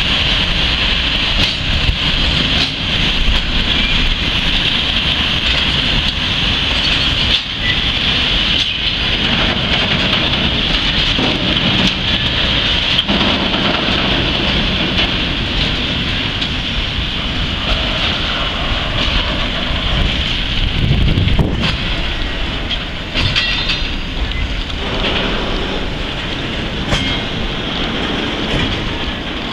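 Freight train of rail tank wagons rolling slowly past close by: a steady rumble and rolling noise of steel wheels on the rails, with occasional clacks.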